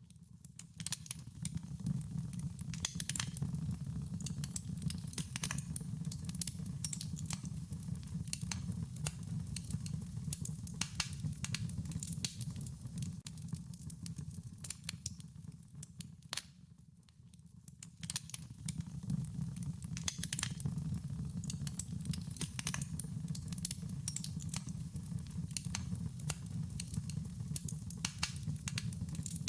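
Wood fire crackling: many sharp snaps and pops over a low steady rumble of burning, dropping away briefly a little past halfway and then coming back.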